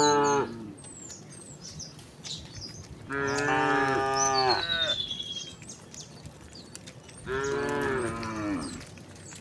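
Cows mooing: the end of one long moo, then two more long moos a few seconds apart, each lasting about a second and a half.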